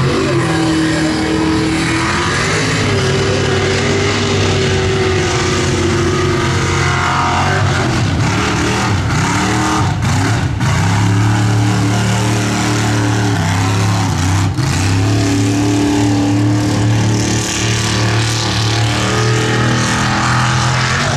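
Engine of a mud-racing pickup truck running at full throttle, its pitch rising and falling as the truck revs through the mud pit.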